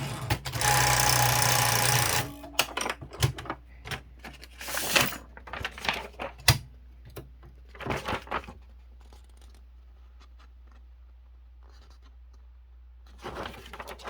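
Kyungbang Clover Topstar 10S manual typewriter mechanism: a loud continuous mechanical rush lasting about two seconds near the start, then a scattering of sharp clicks and knocks. It falls quiet for a few seconds, and a few soft sounds come near the end.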